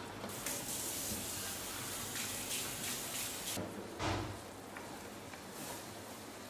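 Red curry and coconut sauce simmering in a pan at a soft boil, bubbling with a steady hiss that eases off after about three and a half seconds. About four seconds in, a spatula goes into the sauce with a short low knock.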